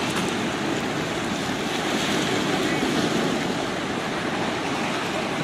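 Small sea waves washing in over a pebble shore and around rocks: a steady wash that swells a little about two seconds in.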